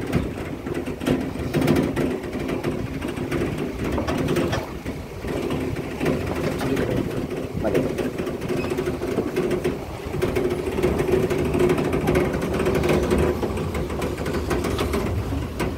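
Car engine running steadily at low speed, heard from inside the cabin, with scattered small knocks as the car moves along a rough dirt track.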